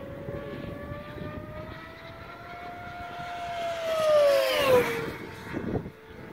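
Radio-controlled airplane, clocked at 160 mph, making a high-speed low pass: its motor's whine rises a little as it comes in, gets loudest about four seconds in, then drops sharply in pitch as it goes past and fades.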